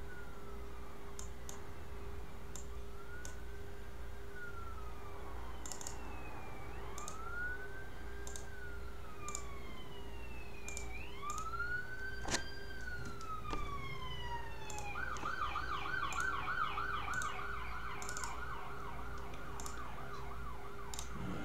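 Emergency-vehicle siren wailing in slow rising-and-falling sweeps, switching to a fast yelp about two-thirds of the way through, with scattered light clicks alongside.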